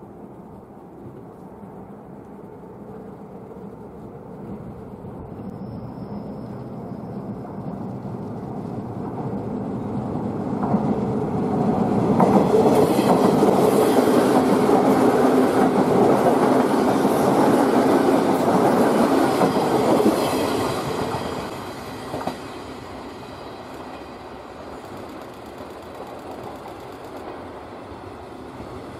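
JR West 201 series electric train running past at close range. Its sound builds over about twelve seconds, stays loud for about nine seconds as the cars go by, then drops away sharply about three-quarters of the way through.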